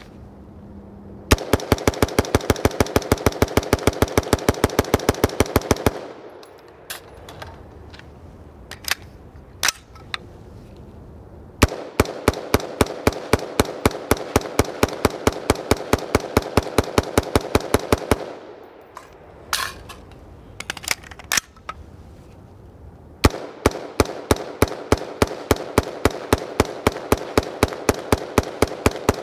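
A BCM AR-15 5.56 mm direct-impingement rifle firing rapid, evenly spaced shots, about six a second, in three long strings of several seconds each. Short gaps between the strings hold a few scattered clicks. The uncleaned, unlubricated rifle runs through each string without a stoppage.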